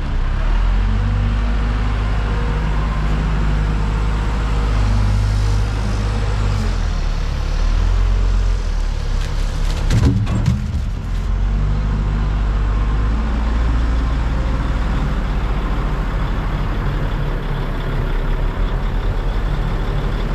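JLG G10-55A telehandler's diesel engine running, its pitch stepping up and down several times as the boom and forks are worked. A short burst of knocks about halfway through.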